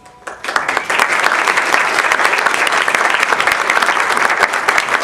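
An audience applauding: many hands clapping, starting about a third of a second in and holding steady.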